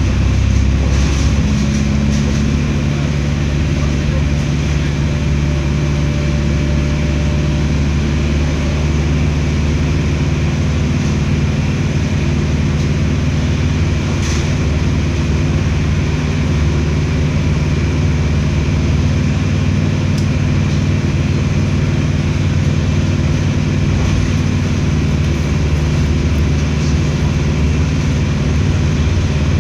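Mercedes-Benz OF 1721L BlueTec 6 bus diesel engine running at an even, steady speed.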